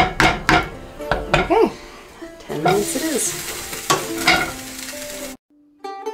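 A pan of Roman-style oxtail stew being stirred as it cooks, with irregular knocks and scrapes of the utensil against the pan and a sizzle underneath. It cuts off abruptly a little over five seconds in, and plucked-string music starts just before the end.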